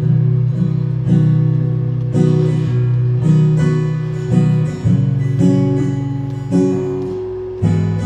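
Steel-string acoustic guitar played solo, chords strummed in a steady rhythm of about two strums a second, each ringing on into the next.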